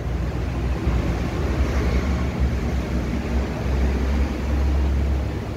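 Steady low rumble with a light hiss over it and no distinct events.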